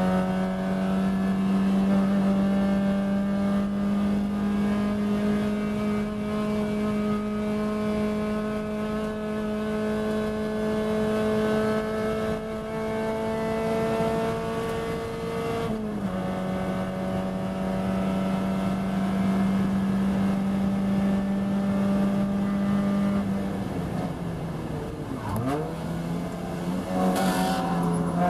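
Spec Miata's four-cylinder engine at high revs under full throttle, heard from inside the race car, its pitch creeping slowly upward. A little past halfway the note steps down slightly, and near the end it dips and wavers.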